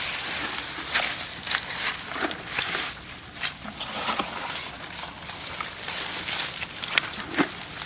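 Rustling and crackling of dry rice stubble and straw being handled or trodden, with many irregular sharp clicks.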